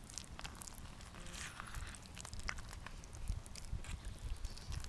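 Orange plastic spoon stirring cooked rice in a metal camping cup: scattered soft clicks and scrapes over a low rumble.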